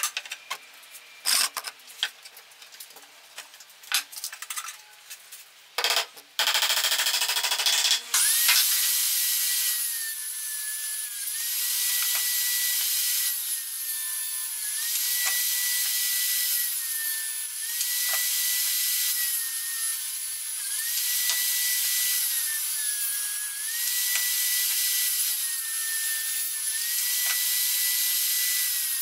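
A few knocks and taps of wood being handled. About eight seconds in, a circular saw mounted under a plywood table starts up and rips a pallet board lengthwise, its motor whine dipping in pitch every few seconds as it takes the load of the cut.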